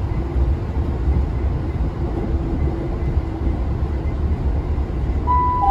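Class 166 'Turbo' diesel multiple unit heard from inside the passenger saloon while running at speed: a steady low rumble of its six-cylinder turbo-diesel engine, transmission and wheels on the track. Near the end, a two-note falling chime from the train's public-address system begins, signalling an announcement.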